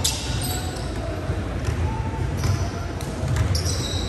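Basketball bouncing on a hardwood gym floor during a game, with repeated low thumps and scattered sharp knocks in a large gymnasium.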